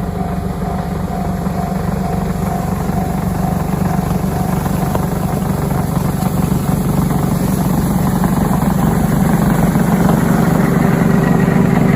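An engine running steadily, slowly getting louder.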